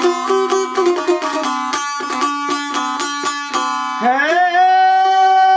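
Folk music: a plucked string instrument plays a quick run of notes over a steady drone. About four seconds in, a singing voice slides up and holds one long high note.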